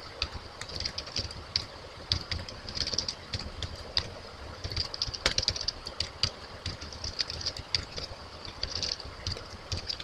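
Typing on a computer keyboard: irregular runs of key clicks with short pauses between them, as a line of code is entered.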